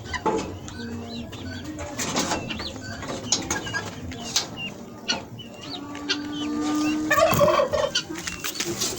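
Mixed poultry flock calling, with many short chirps and clucks throughout and a louder burst of calls about seven seconds in.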